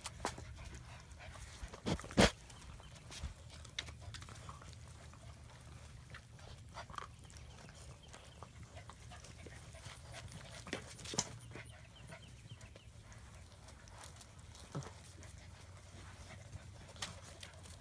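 German Shepherd puppies, nearly eight weeks old, nosing and chewing at a small bowl: scattered soft clicks and knocks, with one sharp knock about two seconds in and another cluster of clicks around eleven seconds.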